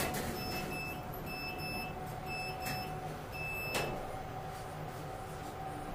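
Elevator car running: a steady low rumble with a faint constant hum, and a few sharp clicks along the way.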